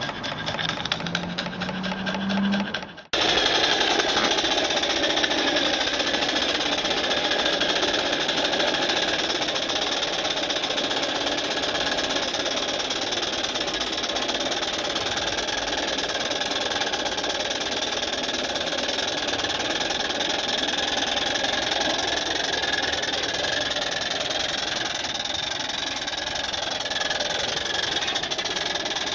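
Single-cylinder engine of a live-steam model Case traction engine running fast with rapid exhaust beats, its pitch rising steadily for about three seconds. After an abrupt break it runs on steadily under way.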